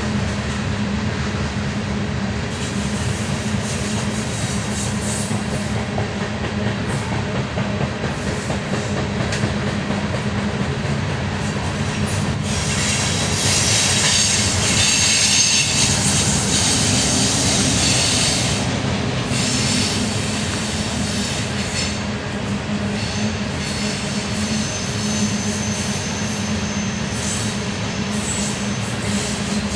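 Loaded coal cars of a BNSF unit coal train rolling past, a continuous rumble of wheels on rail with a steady low hum and high squealing from the wheels, loudest for several seconds midway. The squeal and hum are the sound of the numerous bad wheel bearings the uploader noted on this train.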